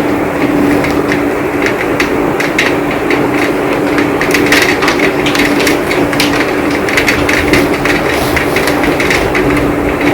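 Heavy rain falling steadily, with many sharp drops striking close by in quick succession. A steady low tone hums underneath.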